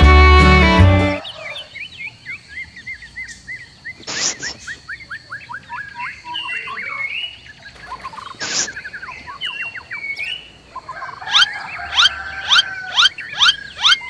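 Music stops about a second in, giving way to birds chirping in rapid runs of short falling notes. Two brief, louder noisy bursts cut in, and near the end a regular series of sharp calls comes about two a second.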